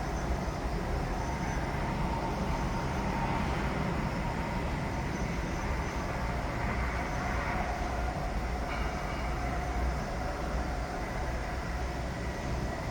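Continuous construction-site machinery noise: a steady low rumble with faint whining tones over it, which the resident describes as noise that never stops.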